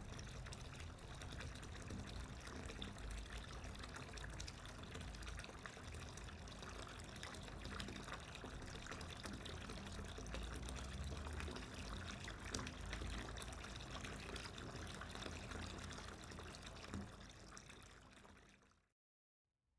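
Steady rushing, trickling noise like running or pouring water, with a low rumble underneath. It fades away near the end and cuts off to silence.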